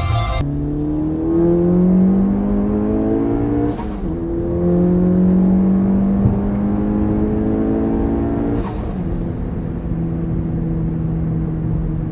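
Big-turbo Mk7 VW GTI's 2.0-litre four-cylinder heard from inside the cabin, accelerating hard through the gears. The engine note climbs steadily, breaks with a short hiss at a gear change about four seconds in, climbs again to a second shift near nine seconds, then holds steady.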